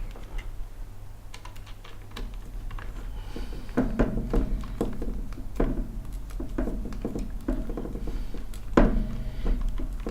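Irregular small clicks, taps and knocks of acrylic frame parts, M3 screws and square nuts being handled and fitted during hand assembly of a 3D printer, over a steady low hum.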